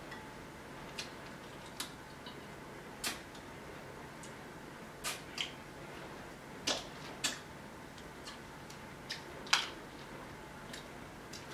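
Snow crab leg shells cracking and snapping as they are broken apart by hand: a string of irregular sharp cracks and clicks, the loudest a couple of seconds before the end, over a faint steady room hum.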